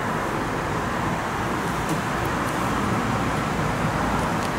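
Steady rushing background noise, even and unbroken, with a few faint light ticks about two seconds in.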